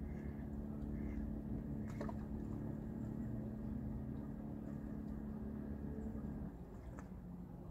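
An engine running steadily with a low hum, cutting out about six and a half seconds in.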